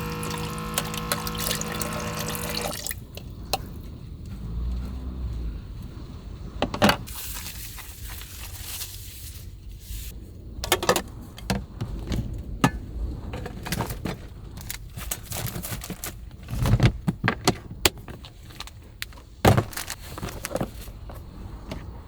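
Background music stops about three seconds in. After that, liquid is poured into a container, with scattered knocks and clinks of things being handled.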